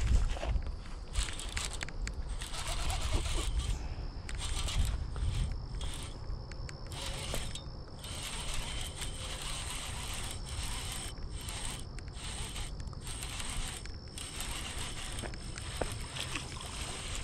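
Baitcasting reel being cranked, its gears whirring as a chatterbait is retrieved. Under it are wind rumble on the microphone and a steady high insect buzz.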